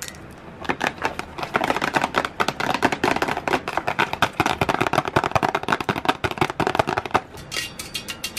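Long press-on fingernails tapping and clicking rapidly, ASMR-style. The clicking grows dense and busy about a second in, then thins out again shortly before the end.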